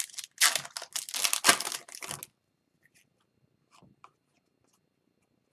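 Foil wrapper of an Upper Deck hockey card pack being torn open by hand: about two seconds of ripping and crinkling, starting about half a second in. A couple of faint ticks follow as the cards are handled.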